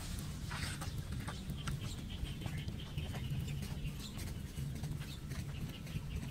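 Outdoor ambience after rain: faint bird chirps over a steady low rumble, with many small scattered ticks.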